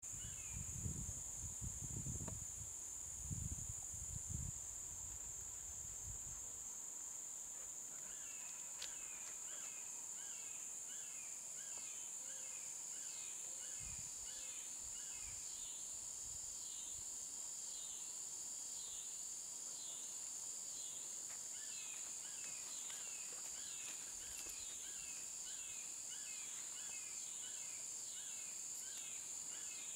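Insects trilling in a steady high-pitched chorus, with a repeating chirp-like call, about one a second, joining about eight seconds in. Low rumbles of wind or handling in the first few seconds.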